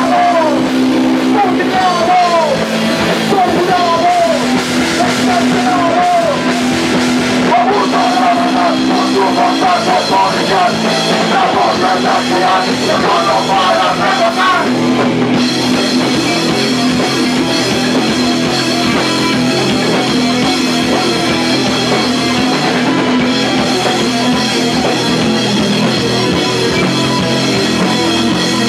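Punk rock band playing live and loud: electric guitar, bass guitar and drum kit, with vocals over roughly the first half, then a guitar-led passage without vocals.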